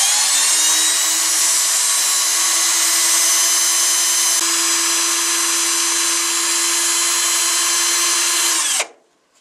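Cordless drill-driver running at steady full speed with a high whine, spinning the shaft of a small electric motor so that it works as a generator. It stops abruptly near the end, the pitch dropping briefly as it winds down.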